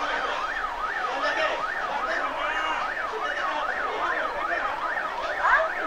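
Emergency vehicle siren sounding a fast yelp, its pitch rising and falling a little over twice a second, briefly louder near the end.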